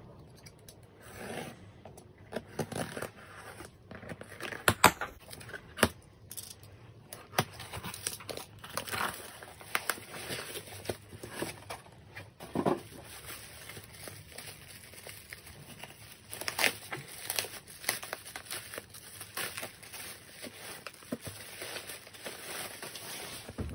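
A cardboard shipping box being cut and torn open with a utility knife, packing tape ripping and flaps pulled back, then plastic bubble wrap crinkling and rustling as the albums inside are handled and unwrapped. Irregular sharp tears and crackles throughout.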